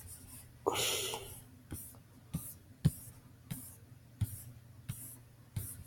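Computer mouse clicking about every two-thirds of a second, each click with a small thud, as heard through a desk microphone. A breathy exhale comes about a second in.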